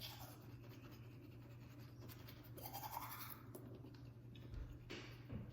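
Faint, quiet brushing and scratching close to the microphone, with a soft rising sound about halfway through and a couple of small knocks near the end.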